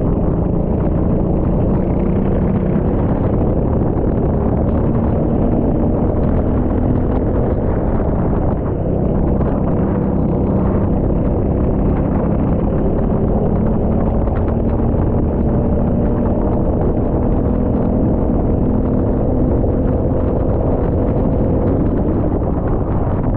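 Rental go-kart engine running under load, its pitch slowly rising and falling with the revs, over a heavy, constant rumble.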